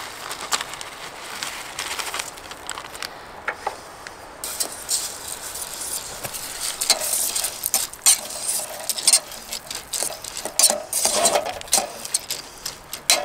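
Rice being stirred into a pot with a utensil: irregular clinks and scrapes against the metal pot, coming thicker and louder in the second half.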